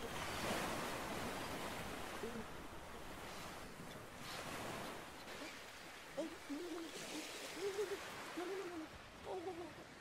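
Surf washing on a beach, easing off over the first half. From about six seconds in comes a string of short, low calls that rise and fall in pitch.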